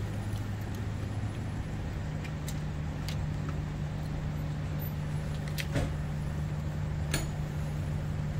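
A nearby motor vehicle's engine running steadily, its low hum stepping up in pitch about a second in. Four short sharp clicks are scattered through it.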